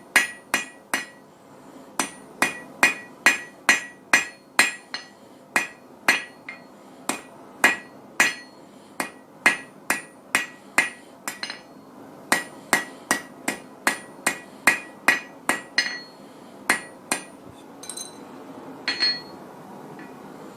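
Blacksmith's hand hammer striking hot steel on an anvil, forging a leaf. The blows come in a steady rhythm of about two to three a second, each with a bright metallic ring. They run in groups with short pauses and thin out near the end.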